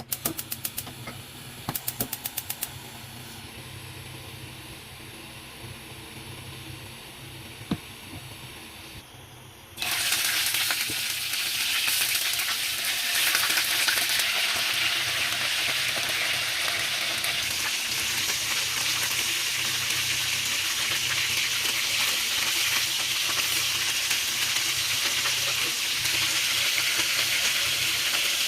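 Two short runs of rapid clicks and a single knock, then about ten seconds in a sudden, much louder sizzle as stir-fry ingredients go into hot oil in a pan. The sizzle then holds steady.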